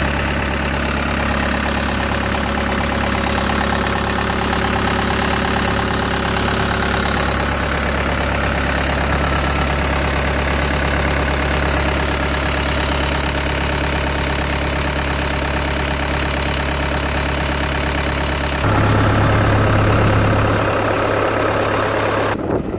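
Cat 262C skid steer loader's diesel engine idling steadily. About three-quarters of the way through, its note changes and gets louder, and near the end the sound drops away.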